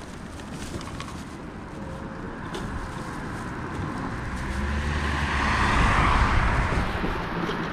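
Motor vehicle engine and road noise, growing louder to a peak about six seconds in, then easing slightly.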